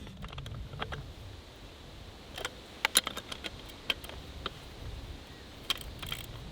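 Scattered metallic clinks and clicks of tools and hardware on a metal Dresser pipe coupling being fitted and bolted down over a repaired 4-inch PVC water main. The sharpest clinks are bunched about three seconds in, with a few more near the end.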